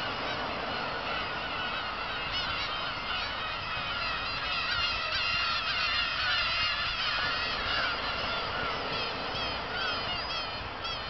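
Black-tailed gulls calling, a flock's worth of overlapping cries that grow denser from about two seconds in, over a steady background hiss.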